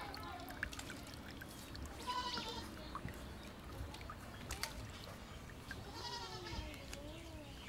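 Goats bleating faintly, a short call about two seconds in and a longer wavering one near the end, over scattered small ticks and crackles of dry soil clods being broken up by hand.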